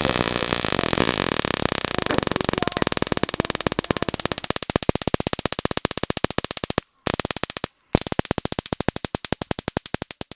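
Harsh electronic synthesizer buzz that breaks up into rapid stuttering pulses, dropping out briefly twice near the end.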